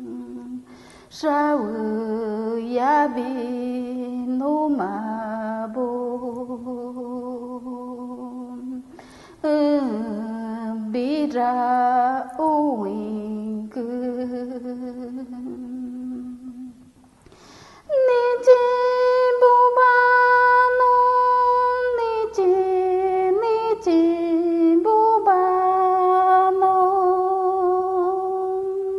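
A woman's solo voice humming an icaro, an ayahuasca ceremony healing chant, in long held, wavering phrases. There are three phrases with short breaks for breath between them. The last begins higher and steps down.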